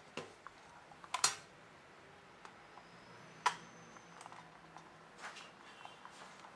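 Logitech K220 plastic wireless keyboard knocking and clacking against a tabletop as it is turned over and laid face-down. A few sharp knocks, the loudest a double knock about a second in, with lighter plastic ticks and clicks between.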